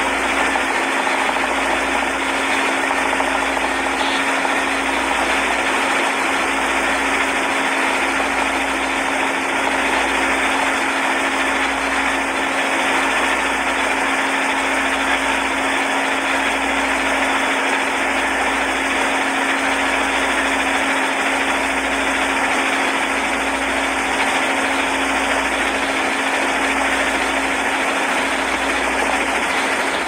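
Motorboat engine running steadily under way, with a steady hum over an even rush of wind and water and a low throb about once a second.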